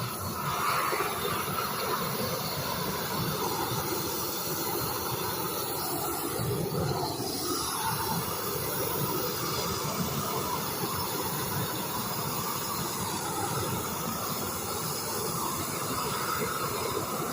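Gas torch burning with a steady rushing noise as its flame chars the surface of a chainsaw-carved wooden turtle.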